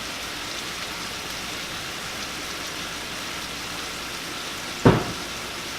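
Shrimp sizzling in olive oil in a skillet, a steady crackling hiss, with one sharp knock about five seconds in.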